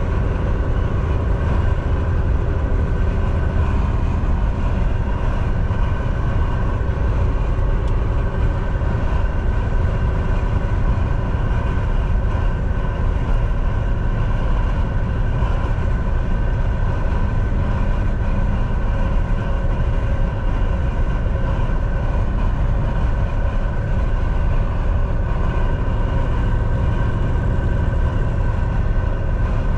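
Semi-truck cruising at highway speed: a steady, unchanging drone from the engine and a low road rumble.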